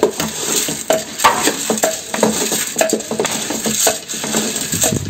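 Wooden spoon stirring beans and meat in an aluminium pressure-cooker pot, knocking and scraping against the metal many times, with a light sizzle of the food sautéing.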